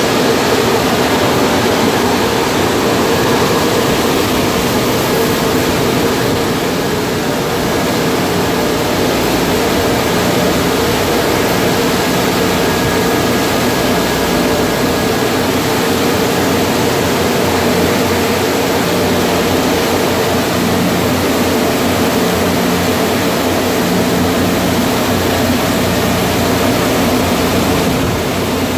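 Tunnel car wash dryer blowers running, a loud, steady rush of air. A faint high whistle sits over it for the first half.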